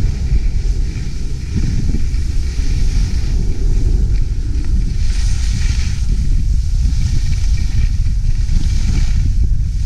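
Skis sliding over packed snow at speed, with wind buffeting the microphone in a steady low rumble. The hiss of the skis on the snow swells about halfway through and again near the end.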